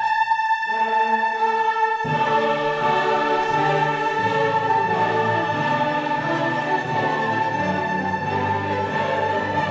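Orchestral music with a choir, a high note held throughout; deeper notes join about two seconds in.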